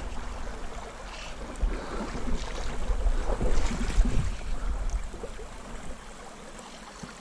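Steady rush of a shallow river with wind rumbling on the microphone, and a few faint knocks between about one and a half and four seconds in.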